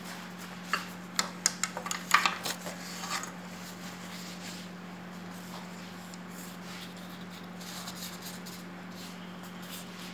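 Light clicks and clatters of kitchen utensils being handled, a quick run of them about a second in that dies away after a couple of seconds, over a steady low hum.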